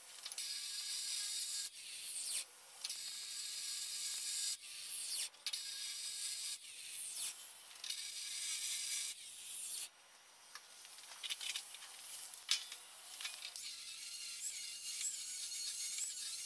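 Angle grinder cutting the steel at the joint between a Dana 44 axle tube and its inner C knuckle, to free the knuckle for rotating and correcting caster. The grinding stops and starts in many short passes, then after a brief lull about ten seconds in it runs more steadily with a wavering high whine.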